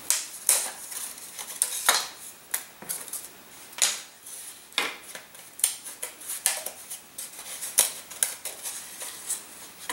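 Thin wooden wing parts being popped out of their kit sheet by hand: a string of short, sharp snaps and clicks at irregular intervals, with light clatter as pieces are handled and laid on the table.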